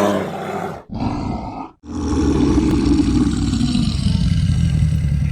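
Bear roaring and growling: two short roars, then one long, low growl lasting nearly four seconds.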